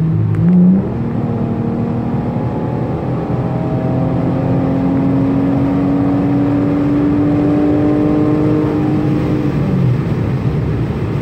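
The Chrysler 200S's 3.6 Pentastar V6, with its muffler deleted, under hard acceleration, heard inside the cabin with the windows up. The revs jump briefly about half a second in, then the exhaust note climbs steadily in pitch for about nine seconds before falling away near the end, over steady road noise.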